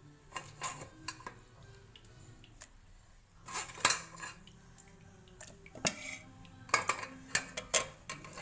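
A metal spoon scraping and clinking against a metal mesh strainer and pot as it presses wet ground coconut, in scattered sharp knocks.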